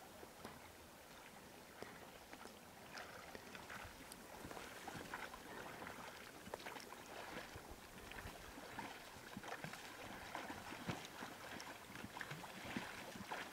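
Faint, distant splashing of oars as a small inflatable rowboat is rowed across a river, swelling slightly with each stroke every couple of seconds.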